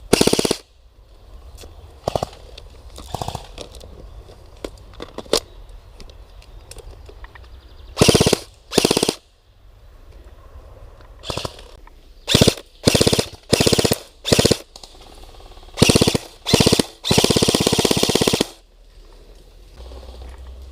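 Airsoft guns firing short full-auto bursts, about ten of them, the last and longest lasting over a second near the end, with fainter single shots between.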